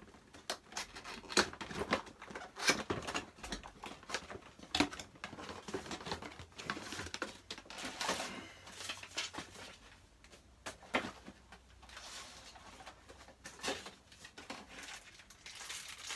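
Cardboard box and packaging being handled while items are lifted out: irregular taps, clicks and short rustles.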